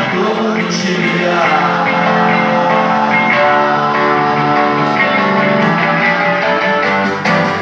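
Live band playing an instrumental passage on acoustic guitar, electric guitar and keyboard.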